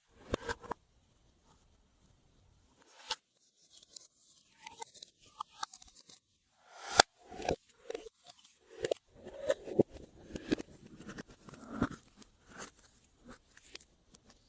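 Slime and its makeup and clay add-ins being worked by hand: irregular sticky clicks and crackles, the sharpest about seven seconds in.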